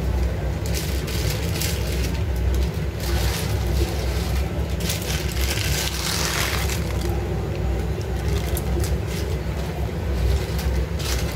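Steady low rumble of a gas burner under a pot of soup at the boil. Hiss and scattered clicks and rustles come over it, loudest about five to seven seconds in, as dry instant noodle cakes are dropped into the pot.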